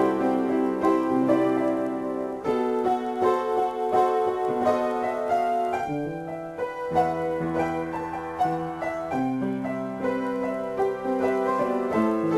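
Piano improvisation: sustained chords with a melody line above, the harmony changing every second or so. About halfway through the playing thins briefly, then lower bass notes come in.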